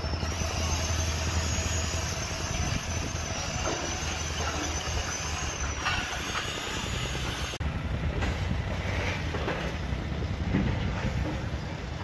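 Construction-site machinery: a heavy engine running steadily with a low rumble, and a high, wavering whine that stops abruptly about seven and a half seconds in.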